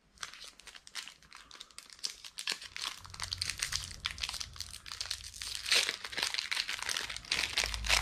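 Foil wrapper of a Topps Pro Debut baseball card pack crinkling and crackling as it is handled and torn open. The crackling is loudest a little before six seconds in and again near the end.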